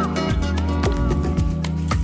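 Background music: upbeat Latin-style music with a steady beat, a bass line and sustained melody notes.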